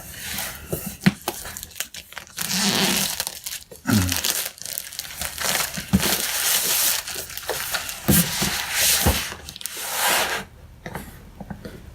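Packaging being handled during an unboxing: crinkling and rustling of wrapping and cardboard, broken by several sharp knocks as boxes are picked up and set down.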